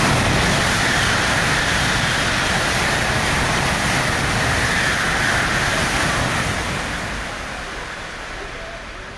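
Shinkansen bullet train passing close by at high speed: a loud, steady rush that holds for about six seconds and then fades away as the train recedes.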